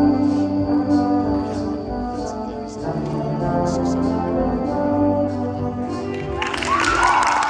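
Orchestral music led by brass, horns and trombones holding sustained chords. About six seconds in, a burst of crowd applause and cheering joins the music.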